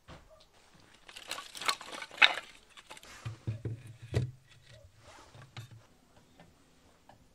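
Split firewood being laid into the firebox of a brick outdoor oven: a run of sharp wooden knocks and scrapes, loudest about two seconds in, then a few duller thumps.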